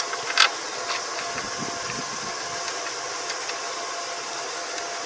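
Steady mechanical hum of a running machine, with two short knocks within the first half second.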